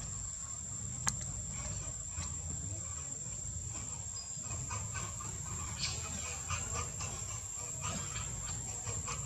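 Outdoor ambience dominated by a steady high-pitched insect drone, over a constant low rumble, with scattered faint short calls and a sharp click about a second in.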